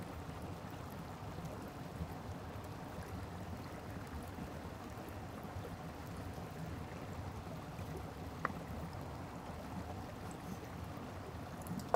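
Steady rush of a stream flowing over rocks, with a couple of faint knocks of a chef's knife on a bamboo cutting board as raw beef is cut into chunks.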